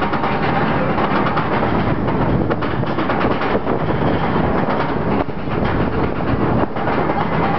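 Riddler's Revenge's B&M stand-up roller-coaster train clattering steadily along its steel track, heard from aboard: a loud, continuous rattle thick with quick clicks.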